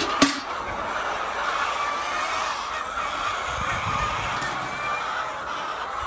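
A large flock of laying hens calling and clucking in a steady, dense chatter. A single sharp knock sounds about a quarter of a second in.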